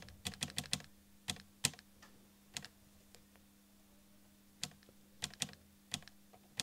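Arrow keys of an Amstrad NC100 Notepad computer's keyboard clicking under single presses. A quick run of about six presses comes first, then scattered ones, a pause of about two seconds, and a few more near the end.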